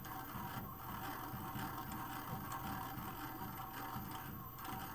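Tormach CNC mill running with its spindle turning slowly at about 100 RPM: a steady mechanical hum with a faint constant tone.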